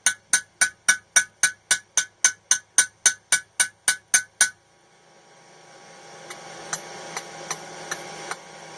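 Rapid, even hammer blows ringing on the anvil, about four a second, as a hot nail is headed in a blacksmith's nail header. The blows stop abruptly about four and a half seconds in. A rising hiss follows, with a few lighter taps in it.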